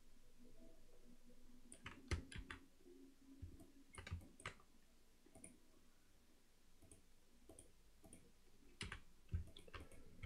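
Faint computer mouse and keyboard clicks, a few scattered clicks in small groups over a quiet room.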